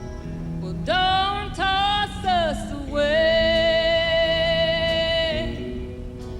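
A woman's voice singing a country song. A short sliding phrase comes about a second in, then one long held high note from about three seconds in, over quiet band accompaniment.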